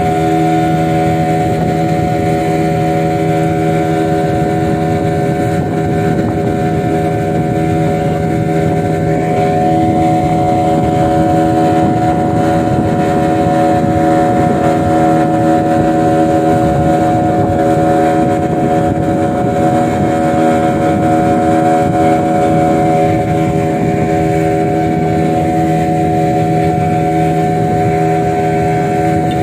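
Motorboat engine running steadily under way, a constant drone with no change in pitch.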